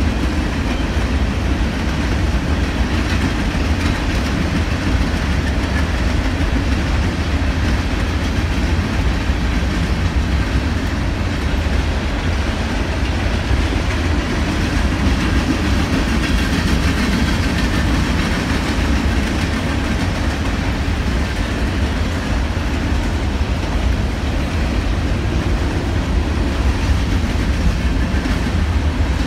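Norfolk Southern freight train's covered hopper cars rolling past on steel wheels: a steady, unbroken rumble of wheels on the rails.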